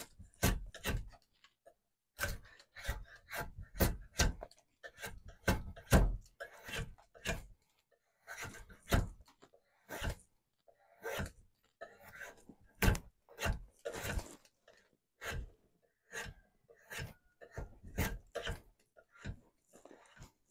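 Hand tools working a piece of wood at a workbench: irregular sharp knocks and taps, one or two a second, with short scraping sounds between them.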